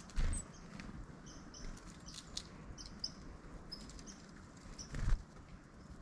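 Two brief wing flutters of small songbirds at the feeding hand, one just after the start and a louder one about five seconds in, as a black-capped chickadee leaves and a tufted titmouse lands. Short, high bird chips sound on and off throughout.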